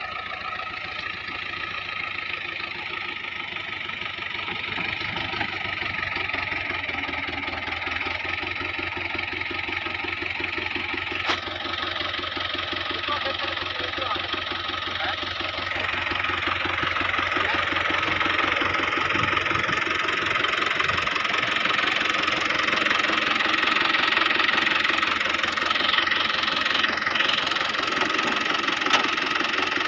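Diesel engine of a 640 tractor running steadily, getting louder about halfway through as the tractor comes close. A single sharp click about eleven seconds in.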